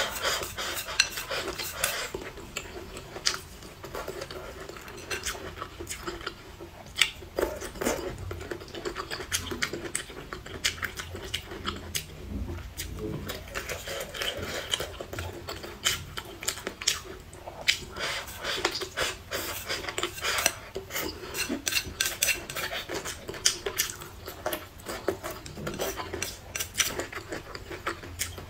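Wooden chopsticks clicking and scraping against a ceramic bowl in quick, irregular clicks, mixed with close-up eating sounds.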